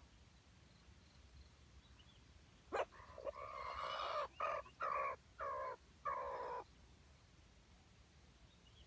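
Jungle fowl rooster crowing once, a stuttering crow of about four seconds broken into a long first note and four short pieces.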